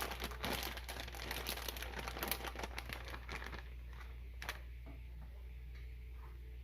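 Crinkling and rustling of a plastic bag as shredded cheese is shaken out onto a salad. The dense crackling stops about three and a half seconds in; after that there is one more click and a faint, steady low hum.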